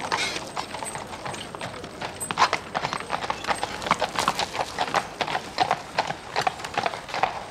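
Hooves of carriage horses clip-clopping on a street as a horse-drawn hansom cab pulls away and a pair of carriage horses trots past: a dense, uneven clatter of hoofbeats.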